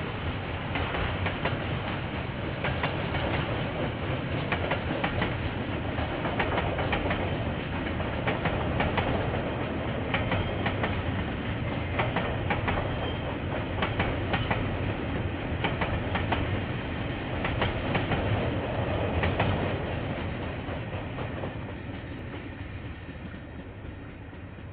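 KiwiRail train passing, its wheels clicking over the rail joints in an uneven run, then fading away over the last few seconds. Heard through a security camera's microphone, thin and lacking the highs.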